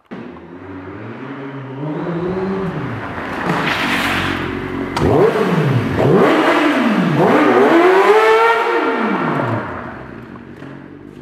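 Sport motorcycle engine revved hard several times, its pitch sweeping up and falling back in repeated surges, then pulling away and fading near the end.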